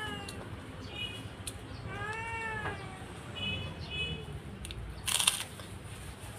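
Domestic cat meowing: a long call whose pitch rises then falls about two seconds in, the tail of another at the start, and shorter, higher calls in between. A brief loud rasp of noise about five seconds in.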